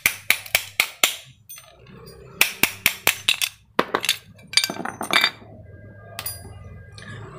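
Metal parts of a scooter's CVT clutch shoe assembly clinking and clattering as they are handled and set down on a concrete floor. It comes as quick runs of sharp clinks, two dense runs in the first half, then a few scattered ones.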